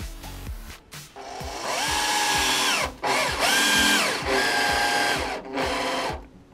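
Power drill running in three short runs, each whine rising to speed, holding steady and winding down.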